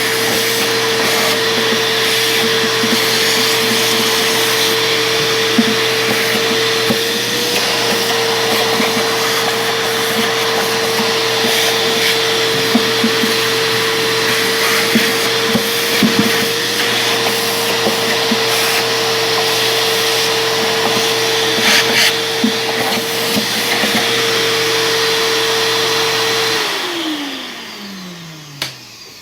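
Vacuum cleaner running steadily with a high motor whine while cleaning out the inside of the subwoofer cabinet, with small rattling ticks of debris. Near the end it is switched off and the whine falls away as the motor spins down.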